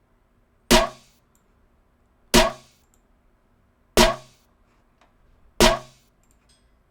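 Electronic snare drum sample played on its own four times, about one and a half seconds apart, each a sharp hit with a short decay.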